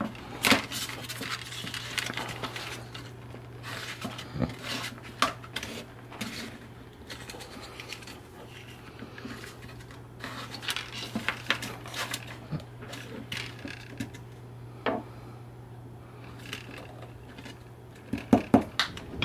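3D-printed plastic prop parts being handled and pressed into a tight-fitting printed housing: scattered clicks, taps and plastic scraping on plastic, with a quick run of louder clicks near the end. A steady low hum runs underneath.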